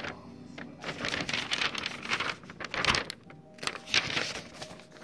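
A sheet of lined notebook paper rustling and crinkling as it is handled, in a few irregular bursts.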